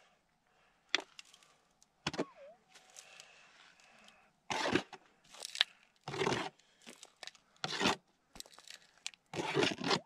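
Gloved hands scraping and scooping dry, stony soil out of a small dug hole, in a series of short scrapes that come thicker in the second half.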